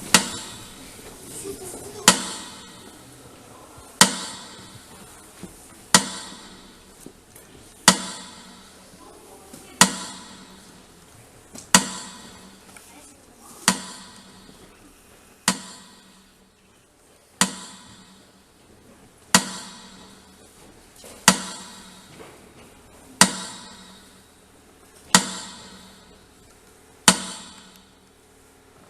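Slow metronome beats, one sharp tick about every two seconds, marking a minute of silence.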